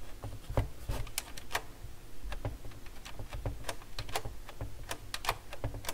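Irregular light clicks and taps of hands working the tonearm-lift lever mechanism underneath an opened Dual CS 607 turntable, its plastic and metal parts knocking together.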